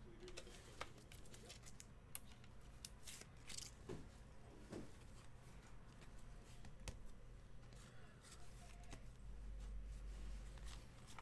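Faint handling of trading cards and a clear plastic card holder: scattered light clicks and short rustles as cards are picked up and moved.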